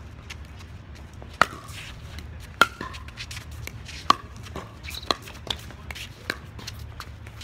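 Pickleball rally: sharp pops of paddles hitting the hollow plastic ball, about one to one and a half seconds apart, with fainter knocks between.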